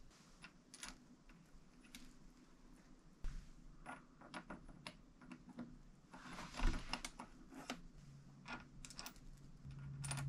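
Faint clicks and clinks of small steel parts being handled and fitted by hand onto a Subaru 5-speed manual transmission gear shaft, with one louder clink about two-thirds of the way through.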